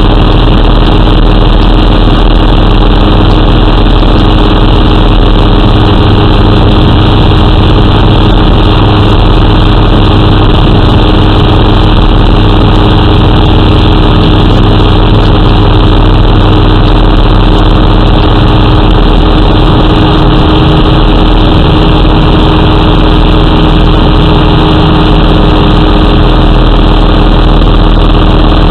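J-3 Kitten ultralight's engine and propeller running steadily in cruise flight: a loud, unchanging drone.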